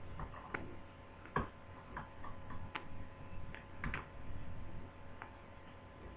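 Irregular small clicks and taps of plastic laptop parts and wires being handled as an Acer Aspire 5920 is put back together, the loudest taps about a second and a half and four seconds in, over a faint steady hum.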